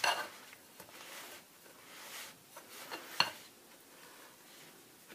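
A spatula stirring dry oat flour and flour in a bowl: soft scraping swishes, with a few sharper knocks against the bowl, the loudest about three seconds in.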